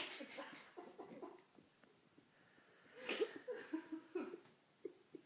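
A sleeping dog breathing and snuffling, with a breathy burst at the start and another about three seconds in, and short faint whimpers scattered between: the sounds of a dog dreaming.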